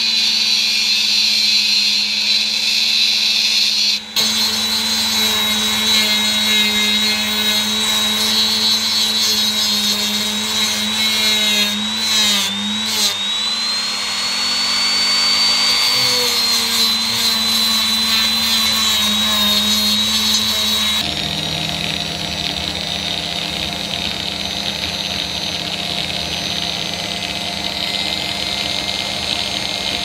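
Handheld high-speed rotary tool running with a steady high whine while its abrasive wheel grinds a steel screw and threaded rod. The pitch dips briefly about twelve seconds in as the wheel is loaded.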